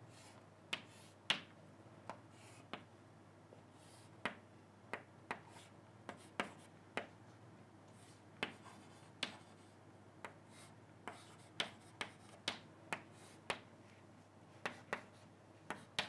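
Chalk drawing on a chalkboard: a string of short, sharp taps and clicks at irregular intervals, a couple of dozen in all, as lines are struck onto the board, over a faint steady low hum.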